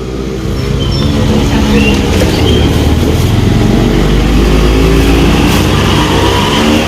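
Motor vehicle engine running, growing louder over the first two seconds and then holding steady.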